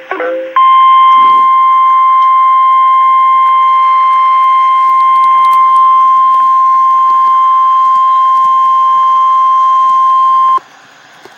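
NOAA Weather Radio warning alarm tone: a single steady 1050-hertz tone held for about ten seconds, starting about half a second in and cutting off suddenly near the end. It is the alert tone that precedes an urgent weather message, here a severe thunderstorm watch.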